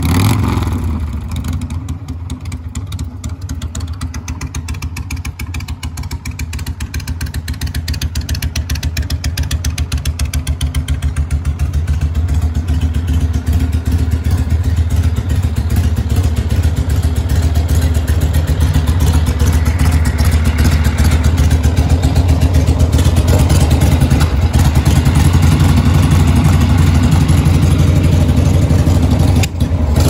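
Rebuilt Harley-Davidson Shovelhead V-twin running through custom exhaust pipes, a steady run of firing pulses. It grows louder through the middle and stays loud to the end.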